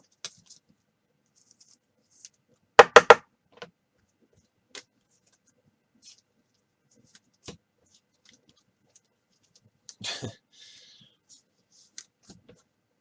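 Clear acetate trading cards being handled on a table: scattered light clicks and scrapes. About three seconds in come three sharp knocks in quick succession, and a short scrape follows near ten seconds.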